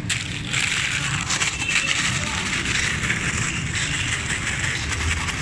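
A paper bag of McDonald's Shake Shake fries shaken hard to coat the fries in nori seasoning: a fast, continuous crinkling rustle of paper and fries.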